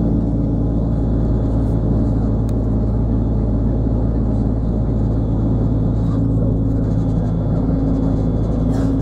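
Steady engine and road rumble heard from inside a moving vehicle, with a low engine hum that rises slightly in pitch near the end.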